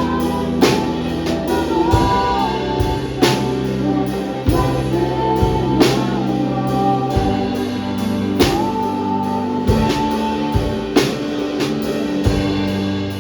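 Music with a drum kit, guitar and singing: a sung melody with long held notes over a steady drum beat.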